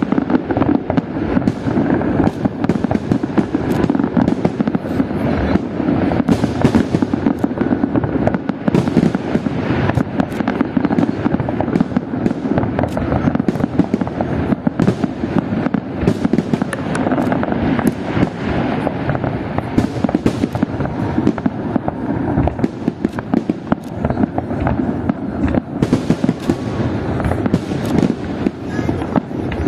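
Fireworks display: a dense, continuous barrage of bangs and crackling bursts with no pauses.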